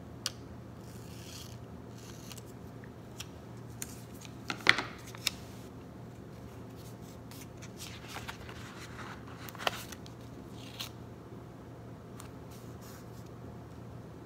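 Paper stickers being cut with small scissors and handled: scattered light clicks and rustles, the two loudest snaps about a third and two-thirds of the way through. A planner page is lifted and rustles a little past halfway.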